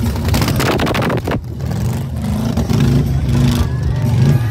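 Off-road tube-frame buggy's engine revving hard and rising and falling in pitch as it climbs over dirt mounds. For the first second and a half a loud rush of dirt thrown up by the spinning tyres sits over it, cutting off sharply.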